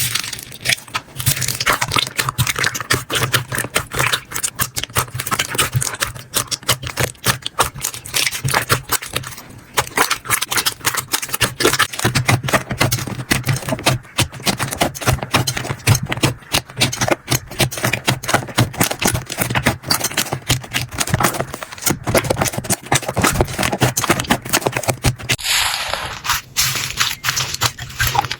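Slime being squeezed and worked by hand: a dense, rapid run of sticky clicks, crackles and pops, with a change in the sound a few seconds before the end.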